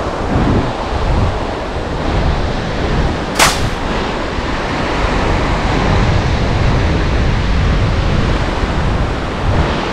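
Surf breaking on a beach, with wind buffeting the microphone. A single short, sharp crack about three and a half seconds in.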